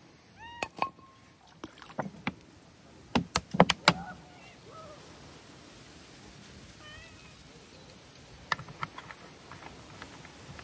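Cats meowing: a short falling meow near the start, then fainter meows around the middle. Sharp clicks and knocks come in clusters, the loudest about three to four seconds in.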